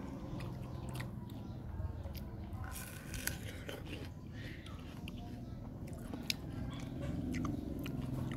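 A person biting into and chewing crisp raw fruit close to the microphone: crunching, with scattered short clicks and smacks.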